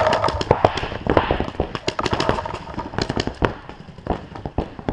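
Paintball fire: a fast, irregular run of sharp pops and cracks, close and distant, some louder than others.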